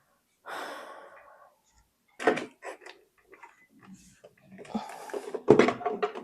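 Clunks, clicks and a scraping rustle of a monitor and its mount being handled and fitted together. There are two sharper knocks, one about two seconds in and a louder one near the end.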